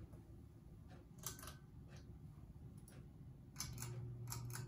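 Hunter Original oil-bath ceiling fan motor running dry, without oil, with a low steady hum that grows louder about three and a half seconds in; a few faint clicks and ticks along the way.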